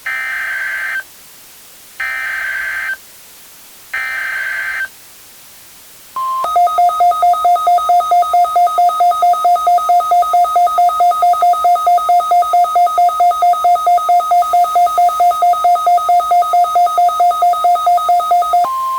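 Emergency Alert System alert tones: three one-second bursts of warbling SAME header data with a second's gap between each. Then a short beep and a loud two-tone attention signal, pulsing about four times a second for some twelve seconds. Another steady beep starts near the end. Together they mark the start of a winter storm warning alert.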